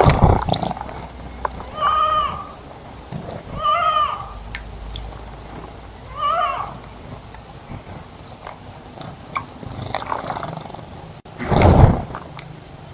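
A bird splashing in a bird bath at the start and again near the end, with three short mewing calls in between.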